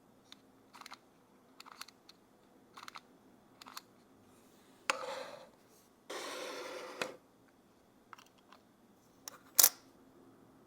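Panasonic Lumix GX85 mirrorless camera's mechanical sounds: a run of light clicks, a short mechanical burst about five seconds in and another about a second long just after, then a sharp click near the end, the loudest of all.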